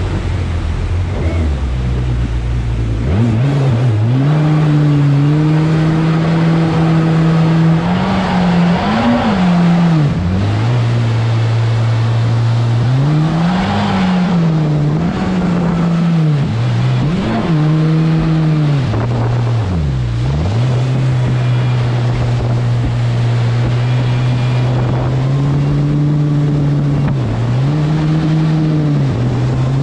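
A 3.5 m jet boat's 300 Ultra engine, low and rumbling for the first few seconds, then throttled up about three seconds in. It runs hard with its pitch rising and dipping again and again as the throttle is eased and opened, over the rush of water under the hull.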